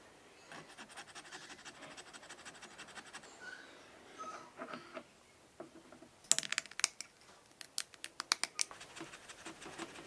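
Small hard clicks, taps and scrapes of a cast resin knob and a hex key being handled and fitted onto a control shaft on a tube tester's metal panel. A fast run of faint ticks lasts a couple of seconds, then come two clusters of sharper clicks past the middle.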